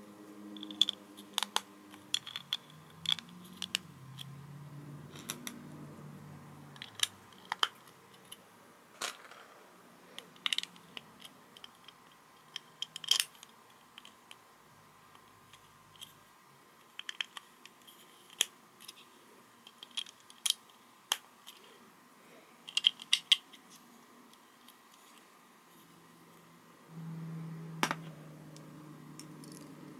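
Plastic LEGO bricks being handled and snapped together, with sharp, irregular clicks, some in quick clusters.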